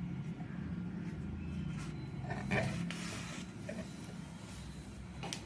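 Felt-tip marker rubbing and scratching on paper as a letter is traced, then a few short handling clicks and rustles as the pen is put down and the sheet moves, over a steady low hum.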